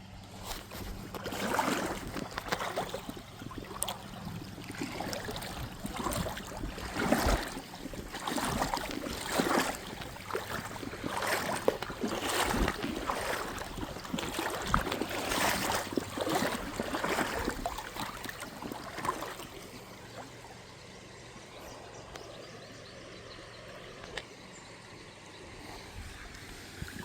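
Creek water splashing and sloshing in irregular surges. About nineteen seconds in it settles to a quieter, steady running of the stream.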